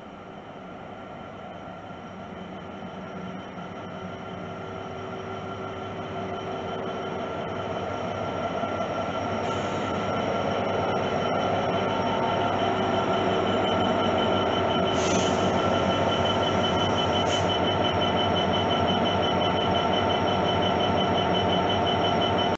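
GBRf Class 66 diesel locomotive, its EMD two-stroke twelve-cylinder engine running as it approaches and passes at the head of a train. It grows louder over the first dozen seconds and then holds steady, with a steady high whine over the engine and rail noise.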